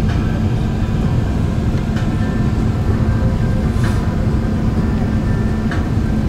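Airbus A380 cabin noise heard from a seat at the back of economy: a steady, loud low rumble of engines and airflow with a constant hum and a few faint clicks.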